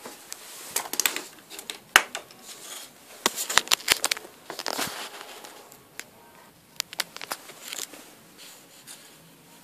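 Irregular sharp clicks and short crackling rustles of handling. They come in clusters about a second in and between about three and five seconds in, with a few more near the end.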